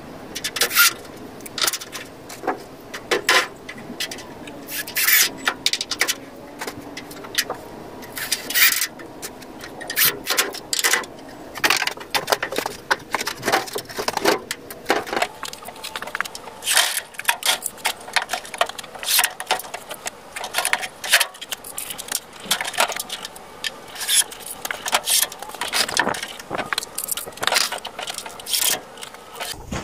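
Irregular metallic clicks, rattles and scrapes from hand work on a wooden rabbit cage with wire-mesh floors, many sharp knocks in quick succession with no steady motor sound.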